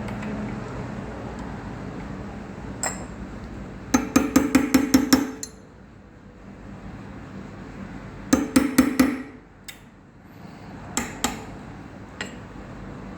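Sharp metal-on-metal tapping on a Toyota ignition lock cylinder: a quick run of about seven taps about four seconds in, another run of four or five taps a few seconds later, and a few single taps in between and near the end.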